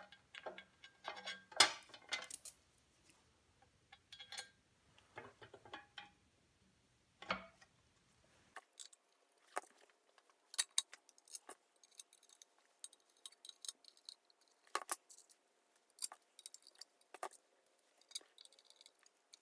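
Small screws and a screwdriver clicking and clinking against a metal chain guard as it is screwed onto a milling machine's table feed housing: scattered light clicks, a few sharper ones.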